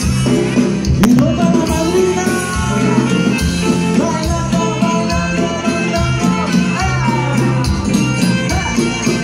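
Latin dance music from a band, with a steady beat and a singing voice.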